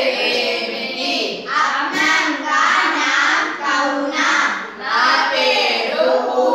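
A group of schoolchildren singing together in the Odia language, in held, sung phrases.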